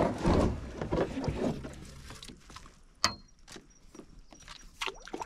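Kayak paddle working in shallow creek water: splashes and drips of the blade strokes, loudest in the first second or so, then quieter, with one sharp knock about three seconds in.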